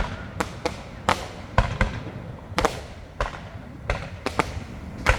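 Fireworks going off: about ten sharp bangs at irregular intervals over a low rumble.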